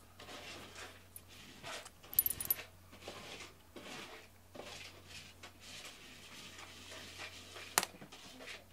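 A cat rubbing and moving right against the microphone, making uneven rustling noises. The metal name tag on its collar clinks a few times about two seconds in, and there is one sharp click near the end.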